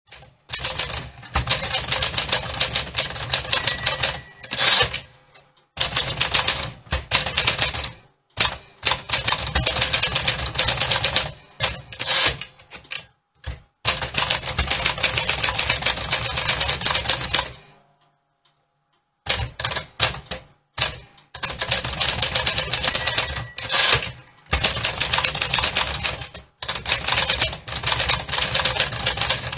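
Manual typewriter being typed on in quick runs of key strikes with short pauses. Twice the margin bell rings, followed by the carriage being thrown back.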